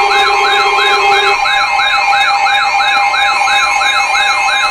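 Several weather alert radios sounding their alarms together for an alert: an electronic siren sweeping rapidly upward about four times a second and a wavering high warble, over steady alert tones. One lower steady tone cuts off about a second and a half in.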